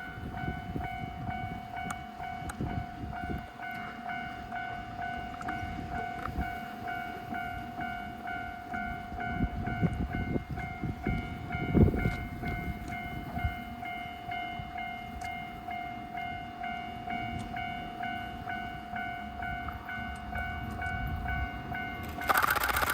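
Japanese level-crossing warning bell ringing with a steady, evenly repeating electronic ding over a low outdoor rumble. Near the end a much louder noise comes in suddenly and drowns the bell: the GV-E197 maintenance train reaching the crossing.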